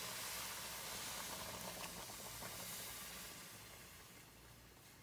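Water poured from a kettle into a hot aluminium pot of fried cracked-corn grits and pork sausage, a faint steady hiss that fades away toward the end. This is the liquid going in to start the grits cooking.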